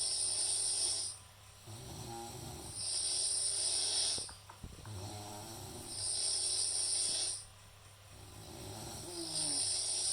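A sleeping person snoring in a steady cycle of about three seconds: a low rattling snore alternates with a louder hissing breath, four hissing breaths in all.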